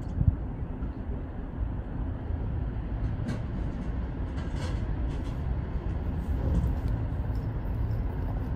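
Steady low rumble of outdoor city noise, with a brief thump just after the start.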